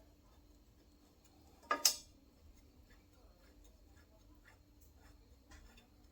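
Light, irregular clicks of hand tools and metal engine parts being handled, with one sharper metallic clink about two seconds in.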